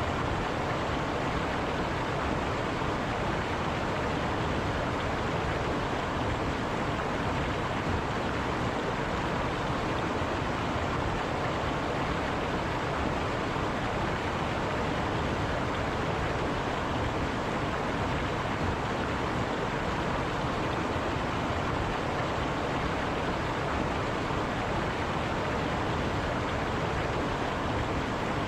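River water running over rocks: a steady, even rush with no breaks.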